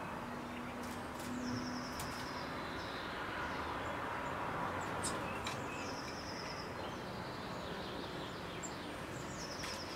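Small songbirds calling, with about three short, high-pitched rapid trills, over a steady hum of city background noise.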